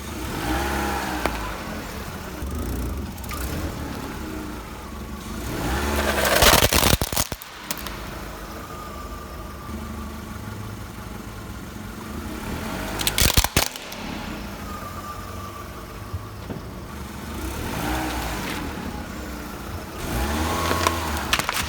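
Car engine running and revving up and down, with two loud crunching, cracking crashes about six and thirteen seconds in as the car's tyre crushes objects.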